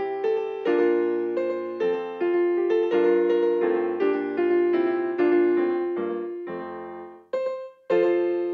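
Yamaha digital piano played with a piano sound: a tune in chords, each chord struck and then fading. Near the end the playing dies away to one short note and a brief pause before the next chord.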